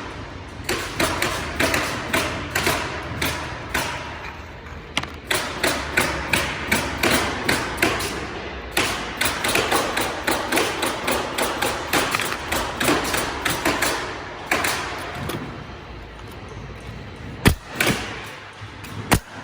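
A hammer driving large nails into wall framing: a long run of steady, rapid blows, about two to three a second, that eases off, followed by two louder, sharper bangs near the end.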